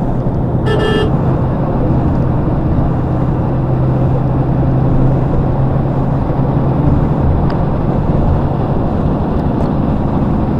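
Steady road noise of a car being driven, an even low drone of engine and tyres, with one short high beep about a second in.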